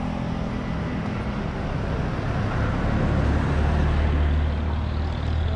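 Motorcycle engines idling, a steady low hum that grows a little stronger about halfway through.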